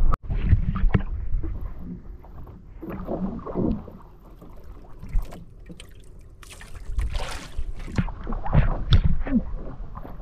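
Water sloshing and slapping against the hull of a small outrigger boat, with wind rumbling on the microphone and scattered small knocks. A broader splash-like surge comes about two-thirds of the way in.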